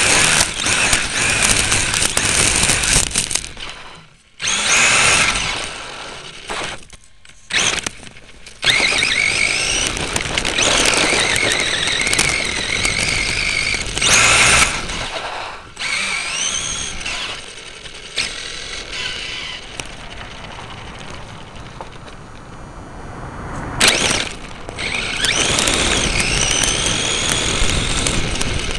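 Radio-controlled truck's electric drive motor and gears whining, rising and falling in pitch as the truck speeds up and slows, heard close from a camera mounted on the truck, mixed with the rattle and crunch of its tyres over gravel and grass. The sound cuts out briefly a few times in the first nine seconds.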